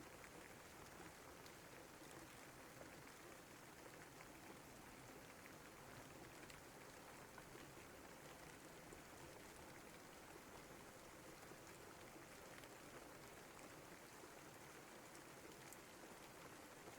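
Faint, steady rain: a continuous hiss with scattered small drop ticks.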